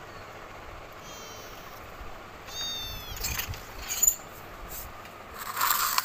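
Kittens mewing in a plastic pet carrier, two high-pitched meows, the second louder. About three to four seconds in, the carrier's wire door clicks and rattles as it is opened by hand, and a brief rustling burst follows near the end.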